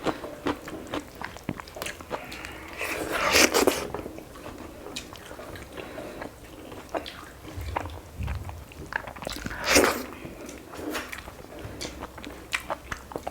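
Close-miked eating sounds of chicken curry with rice: chewing and biting with many small wet mouth clicks. Two louder, longer noises stand out, about three seconds in and about ten seconds in.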